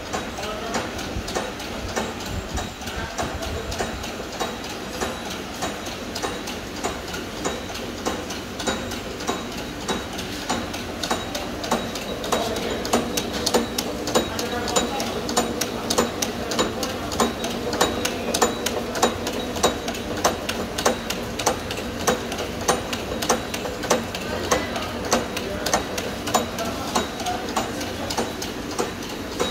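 Automatic tea-bag packaging machine (MP160) running, its mechanism clicking in a steady, even rhythm over a hum. The clicks get louder about twelve seconds in.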